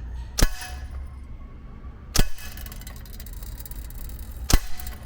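Scoped BB gun fired three single shots, about two seconds apart, each a sharp crack with a short ringing tail.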